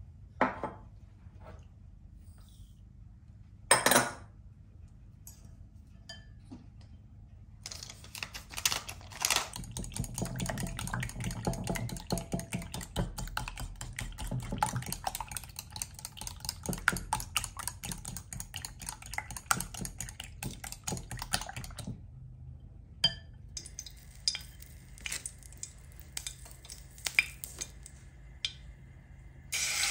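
Eggs being beaten by hand in a glass bowl, the utensil clicking rapidly against the glass for about a quarter of a minute. Two sharp knocks come in the first few seconds, and scattered clicks follow the beating. Hot oil begins to sizzle in a frying pan right at the end.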